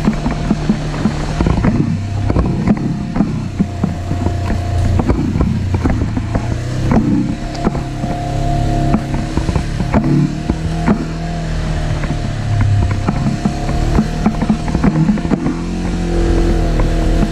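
Side-by-side UTV engine running while driving a rough dirt trail, its pitch rising and falling with the throttle, with frequent knocks and rattles from the vehicle jolting over bumps.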